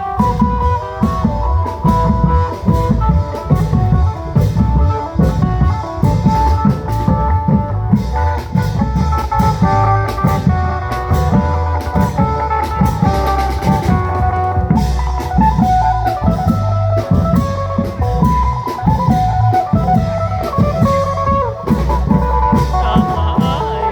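Isan klong yao long-drum music: a phin (plucked lute) melody in an applied ancient pattern, played over a steady, dense drum rhythm with heavy bass beats.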